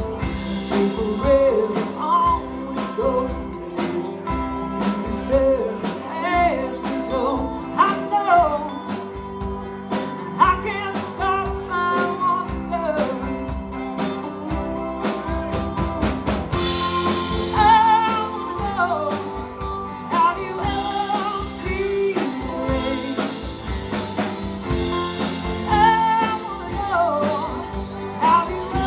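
A live country-rock band playing through a PA: acoustic and electric guitars and a drum kit, with a lead vocal and wavering guitar lines over a steady beat.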